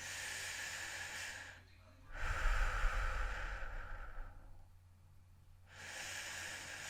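A person breathing heavily, close to the microphone: three long, noisy breaths with short pauses between them, the middle one the loudest.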